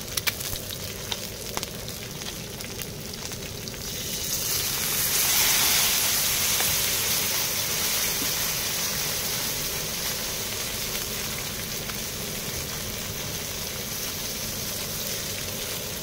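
Salmon pieces and fried eggs sizzling on a hot black griddle pan, with small spitting pops. About four seconds in, soy sauce hits the hot pan and the sizzle swells louder, then slowly eases.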